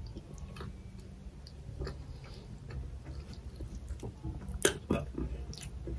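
Close-miked chewing of boiled mutton, with small wet mouth clicks and smacks scattered throughout. A couple of louder clicks come about three-quarters of the way in.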